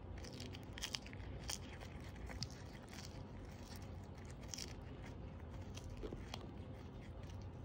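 A Siamese cat licking and chewing a capelin: irregular small clicks and crunches, thickest in the first few seconds, then sparser.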